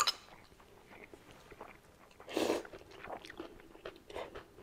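People eating spaghetti at a table: soft chewing and small clicks of forks, with a sharp click right at the start and one short, louder noisy sound about two and a half seconds in.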